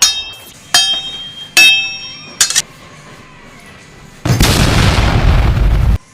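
Three ringing metallic dings about a second apart, then a quick double click, then a loud boom-like rush of noise lasting under two seconds that cuts off suddenly.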